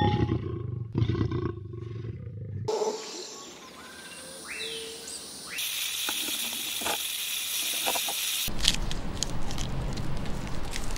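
A cut-together series of wild animal sounds: a lion's low pulsing grunts for the first couple of seconds, then, from about the middle, a steady hiss that fits the horned viper shown, lasting about three seconds before a cut to a noisier stretch with clicks.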